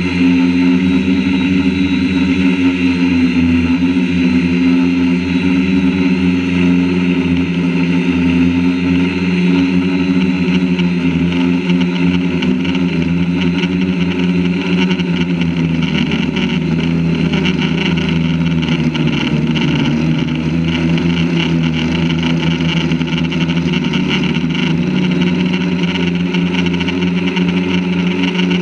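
Quadcopter drone's electric motors and propellers buzzing steadily in flight, heard from a camera mounted on the drone itself, the pitch wavering and dipping briefly around the middle as the throttle changes.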